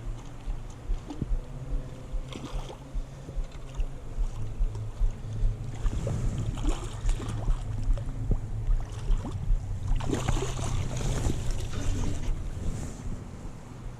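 Water splashing in two bursts, about six and ten seconds in, over a steady low rumble.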